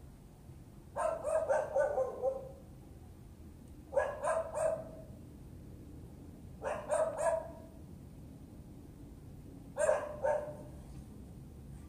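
A dog barking in four runs of two to six quick barks, spaced about three seconds apart. It is alert barking set off by a delivery saleswoman's vehicle stopped nearby, and it keeps on until she leaves.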